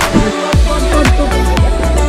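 Electronic dance music with a steady beat; a deep bass comes in about half a second in.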